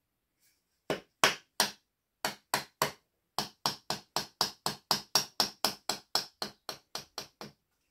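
Wooden mallet knocking on the back of a folding knife blade, driving it into the end of a hazel shaft to split off slivers of wood. About 25 sharp knocks: two groups of three, then a steady run of about four a second.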